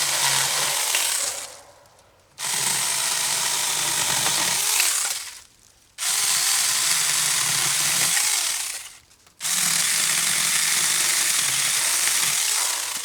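Saker battery-powered mini chainsaw cutting wood in four runs of a few seconds each. The trigger is released briefly between runs, and each run starts suddenly.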